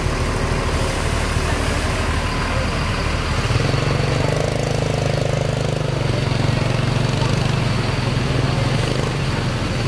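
Diesel engine of a Mercedes-Benz coach running at low speed while the bus manoeuvres. Its note steps up in pitch about three and a half seconds in as it takes more throttle.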